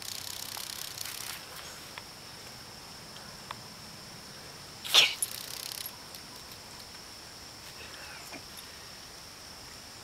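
Dog sniffing at a cicada, with one sharp snort about five seconds in, the loudest sound here. A faint, steady high whine runs underneath.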